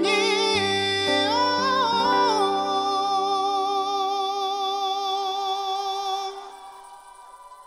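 A male singer's ballad performance with band accompaniment: the voice climbs and then holds one long note with vibrato, and the music fades out about six seconds in.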